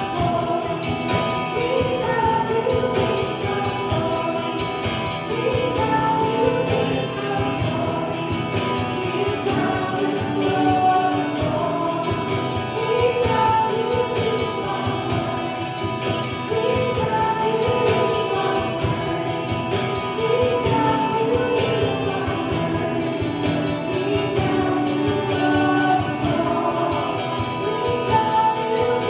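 Gospel worship music: a group of singers with instrumental accompaniment and a steady beat.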